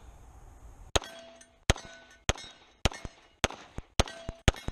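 Canik TP9SFx 9mm pistol firing 124-grain rounds in a steady string: about seven shots roughly two-thirds of a second apart, starting about a second in, with the pistol cycling every round without a jam. A short ringing tone follows several of the shots.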